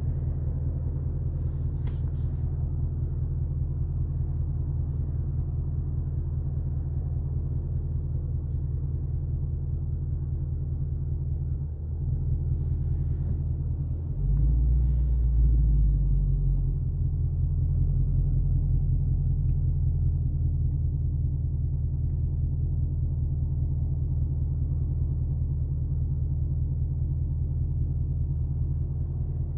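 Ford Mustang's engine idling at a stop with a steady low exhaust rumble, heard from inside the cabin. About fourteen seconds in, the rumble swells louder for a couple of seconds, then settles back.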